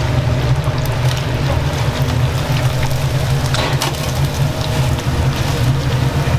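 Steady low rumble of kitchen machinery with a few short knocks and clatters.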